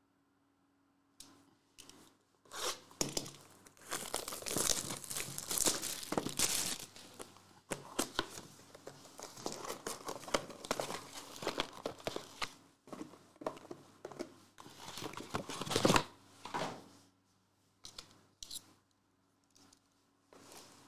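Plastic shrink wrap crinkling and tearing as a sealed trading-card box is cut open with a utility knife and unwrapped. Near the end the crinkling gives way to a few light taps of cardboard boxes being handled and set down.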